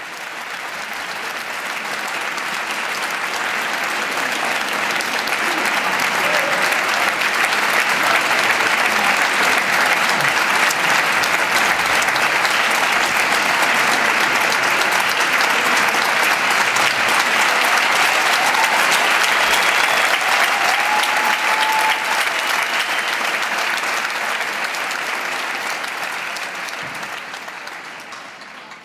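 Large concert-hall audience applauding steadily, swelling over the first few seconds and fading out near the end.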